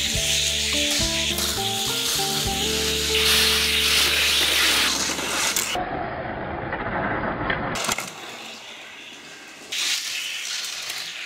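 Die-cast Matchbox Superfast toy cars rolling fast down a plastic race track, a rushing hiss, loudest in the first half and again near the end, with background music underneath for the first half.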